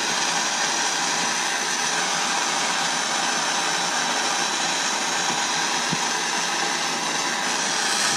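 Gas soldering torch hissing steadily as its flame heats a buckle, drawing hard silver solder along the joint to follow the heat.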